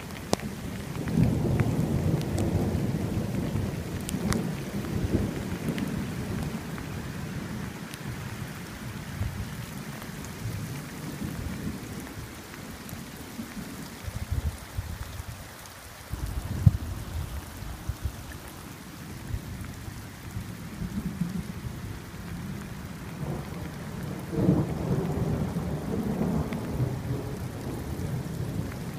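Rain falling steadily in a forest while thunder rolls: a long low rumble starting about a second in and lasting several seconds, another near the end, with a few sharp cracks between.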